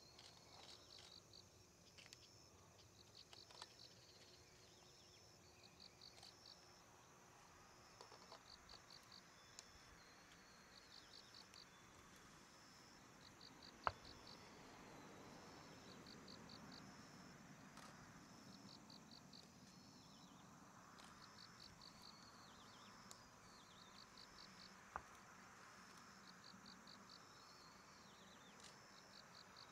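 Faint chirping of insects such as crickets: repeated short trains of rapid chirps over a steady high trill. Under them is a faint low hum that grows a little past halfway. Two sharp clicks stand out, the louder about 14 seconds in and another about 25 seconds in.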